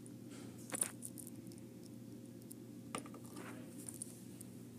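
Quiet handling sounds of small objects on a tabletop: a light click just under a second in and a sharp knock about three seconds in, over a steady low hum.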